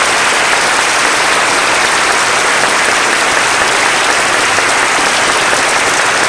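Audience applauding: a steady, dense round of clapping.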